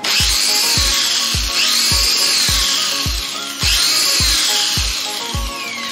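Electric rotary polisher (ALDO type 501, 440 W) with a wool polishing bonnet, running at its top speed setting of about 4000 rpm. Its high motor whine swells and sags three times, fading down near the end.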